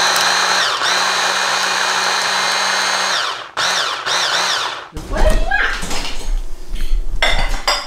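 Electric stick blender with a chopper bowl running steadily for about three seconds, chopping basil, pine nuts and olive oil into pesto, its whine dipping briefly once, then run again in three short pulses. After that come knocks and a low rumble of handling.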